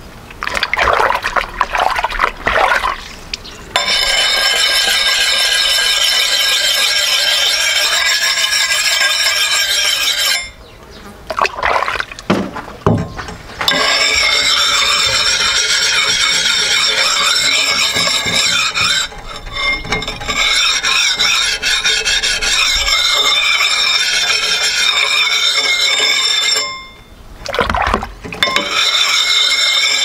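Axe blade being honed by hand with a wet whetstone: a continuous rasping scrape laced with steady high ringing tones from the steel. It stops twice for a few seconds, about ten seconds in and again near the end, after a few knocks at the start as the axe is handled.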